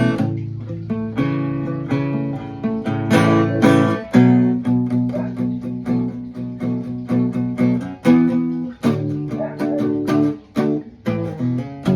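Guitar played freely, mixing strummed chords with picked notes: sharp attacks and chords held for a second or more, changing through the passage.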